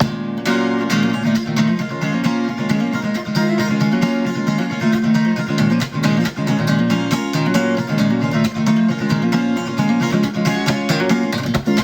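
Acoustic guitar strummed in a quick, steady rhythm with no voice: an instrumental passage of the song.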